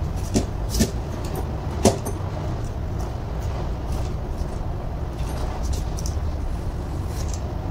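A few sharp metal clicks as a test-lamp probe and an alternator rectifier plate are handled, the loudest about two seconds in, over a steady low background rumble.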